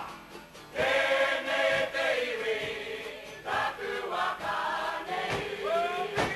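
Māori kapa haka group of men and women chanting in unison on long held notes that bend and slide in pitch, with a few sharp percussive strikes between lines.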